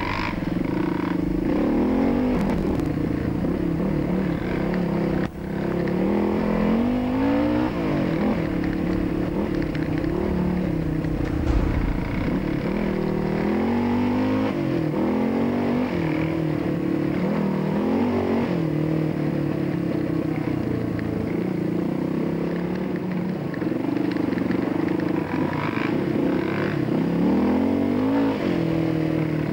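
Dirt-bike engine running under way, its pitch rising and falling again and again as it is revved and shifted through the gears.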